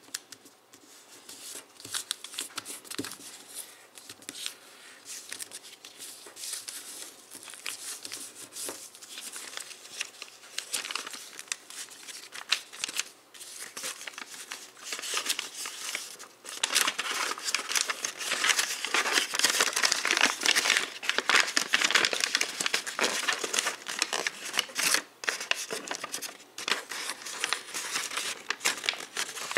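Hands folding and creasing a sheet of camouflage-printed origami paper: quick crinkles and rustles, which grow denser and louder a little past halfway.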